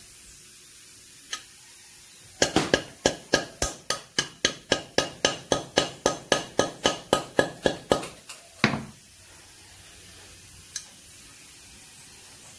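Hammer blows on a valve wedged in a Suzuki Hayabusa cylinder head, driving out the jammed valve: a quick, even run of sharp metallic strikes with a ringing note, about four a second for roughly five seconds, then one heavier single blow.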